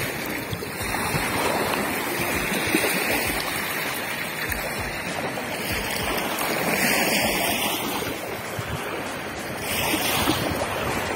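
Small waves washing onto a pebble shore, swelling every few seconds, with wind rumbling on the microphone.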